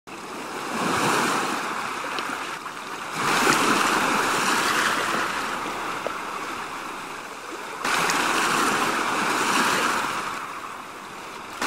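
Sea surf washing in three swells that rise and fade. The second and third swells come in suddenly, about three and eight seconds in.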